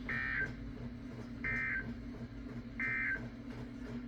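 Emergency Alert System end-of-message signal: three short, identical bursts of warbling digital data tones, about a second and a half apart, over a faint steady hum. They mark the end of the severe thunderstorm warning.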